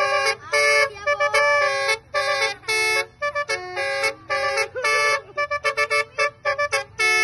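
Basuri musical vehicle horn playing a tune: a fast run of short, clipped honked notes, some held a little longer, with several horn tones sounding together.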